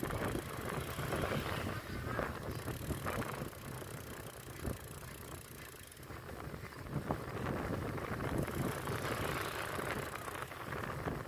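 Wind buffeting the microphone over rumbling road and engine noise from a vehicle moving along at speed, with a few brief knocks.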